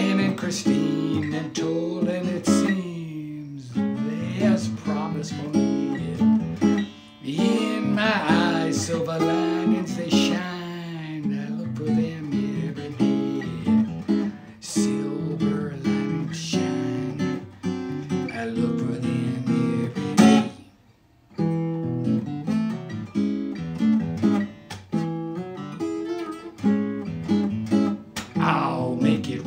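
Acoustic guitar strummed and picked steadily, with a man's singing voice over it in stretches. There is a brief pause in the playing about two-thirds of the way through.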